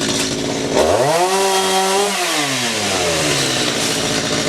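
Chainsaw engine revved up sharply about a second in, held at high speed for about a second, then let back down toward idle, over steady machine noise.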